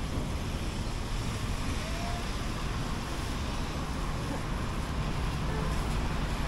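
Steady city street noise: traffic hiss with a low rumble.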